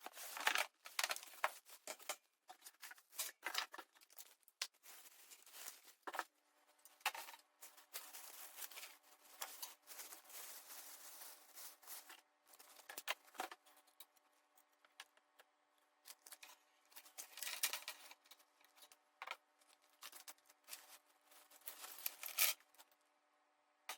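Irregular rustling, tearing and clicking of things being handled, likely packaging. A steady hum joins about six seconds in.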